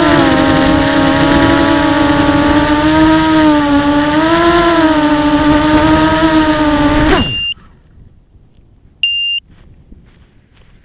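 Quadcopter's DYS 2204 1960 KV brushless motors with 5045 bullnose props whining steadily on 4S, the pitch wavering gently with throttle, then stopping abruptly about seven seconds in. A short electronic beep follows about two seconds later.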